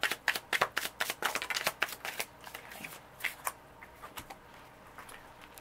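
A deck of tarot cards being shuffled by hand: quick card slaps about six a second for the first two seconds, then the shuffling stops and a few soft taps follow as cards are laid down.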